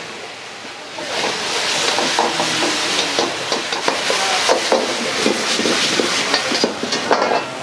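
Meat stir-frying in a wok over a high gas flame, sizzling loudly from about a second in. A metal ladle scrapes and clanks against the wok over and over as it tosses the food.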